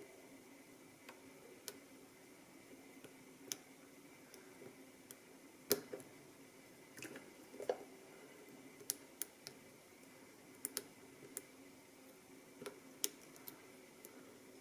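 Lock pick and tension wrench working the pins of a Master Lock Pro Series padlock: small sharp clicks and ticks at irregular intervals, a dozen or more, over a faint steady hum.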